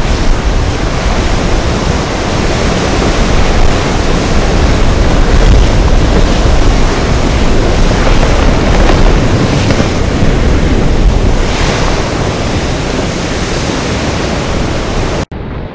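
Ocean surf and wind buffeting the microphone: a loud, steady rushing noise with a heavy low rumble. It cuts off suddenly near the end.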